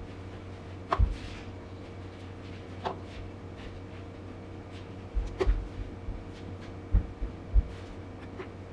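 Household knocks and clunks, about six in all, like cupboard doors or objects being handled and set down, over a steady electrical hum.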